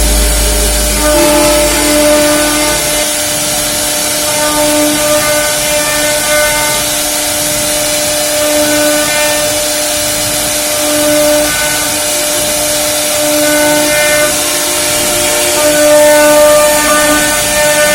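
CNC router spindle cutting wood: a loud steady hiss with a whine whose tones swell and fade every second or two as the bit works through the cut.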